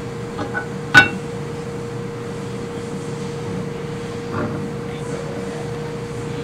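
Metal lathe parts handled and set together: one sharp metallic clink about a second in as the base meets the lathe bed, with a few faint knocks of handling later.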